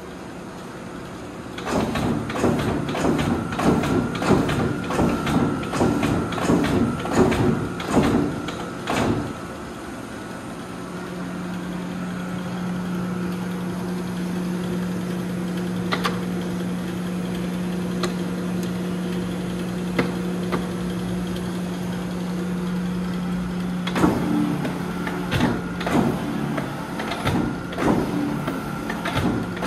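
110-ton Aida NC1-110 gap-frame mechanical punch press with air clutch running and cycling: a quick run of clunks, about two a second, with hissing from the air clutch and brake. A bit less than halfway through the clunking stops and only the steady hum of the main motor and flywheel remains, with a few clicks; near the end the clunking stroke cycle starts again.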